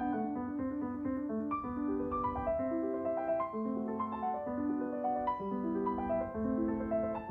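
Background piano music: a slow melody of held notes, one after another.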